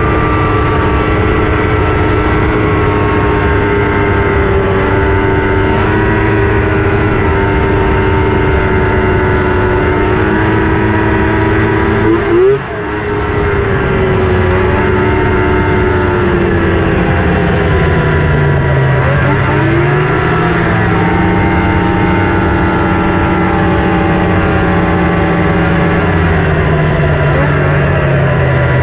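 Polaris racing snowmobile's two-stroke engine running steadily at moderate speed, with a brief blip and drop in level about halfway through and a dip and recovery in pitch about two-thirds of the way in.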